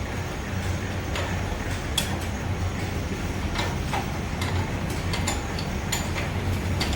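Scattered light clicks and taps of hand tools over a steady low hum.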